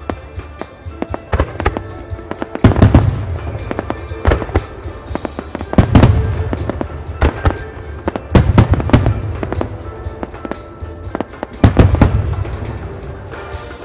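Aerial firework shells bursting in a starmine barrage, with four big booms about three seconds apart among many smaller pops and crackles. Music plays along with the display.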